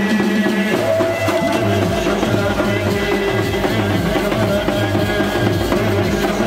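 Indian wedding brass band (band baja) playing a Bollywood song. Brass melody over a steady drum beat, about two beats a second, amplified through the band cart's speakers.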